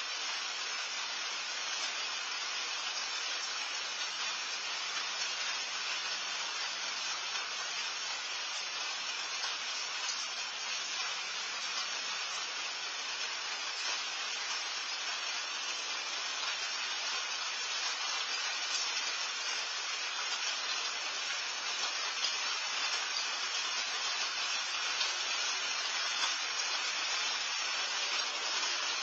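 Steady rain falling, an even hiss picked up by a patio security camera's microphone.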